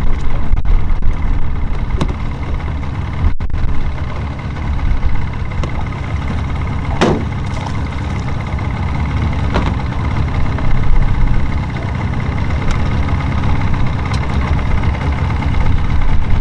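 Yamaha 115 outboard motor idling, a steady low rumble.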